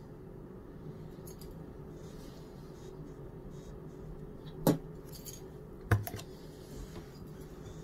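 Quiet room tone with a faint steady hum, broken by two short sharp clicks, the first a little before five seconds in and the second about a second later.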